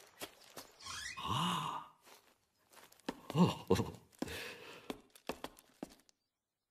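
A cartoon man's wordless vocal sounds: two short murmuring sighs or grunts, the first about a second in and the second near the middle, with faint clicks between them.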